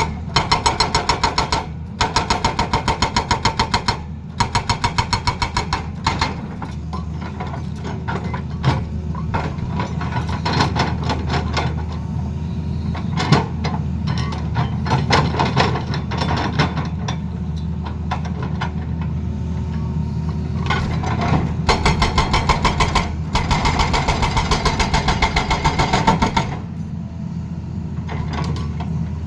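Excavator-mounted hydraulic breaker hammering in runs of rapid, evenly spaced blows over the steady running of the excavator's diesel engine. Three runs come in the first six seconds and two more near the end, with only the engine and scattered knocks in between.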